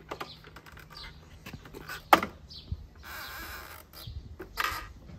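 Hollow PVC fence parts knocking, clicking and rubbing against each other as a middle rail is fitted down over the pickets, with one sharp knock about two seconds in.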